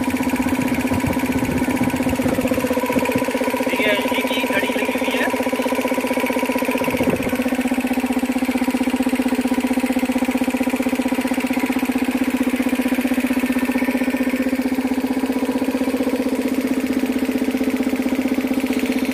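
Elgi 3 HP twin-cylinder air compressor pump, belt-driven by its electric motor, running steadily and smoothly with a fast, even pumping beat as it fills its receiver tank.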